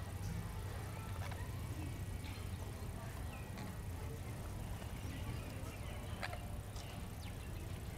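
Steady low outdoor rumble with a few short, sharp bird calls scattered through it, the clearest about six seconds in.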